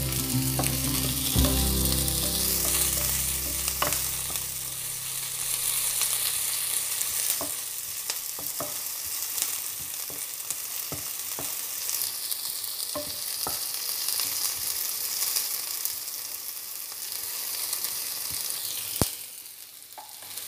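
Chopped onions and garlic sizzling in olive oil in a frying pan, with a wooden spatula stirring and knocking against the pan now and then. A low hum runs under the first four seconds or so, then stops.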